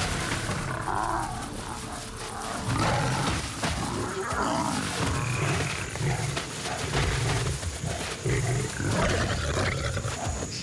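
Lions growling in a run of short, rough bouts over a giraffe kill.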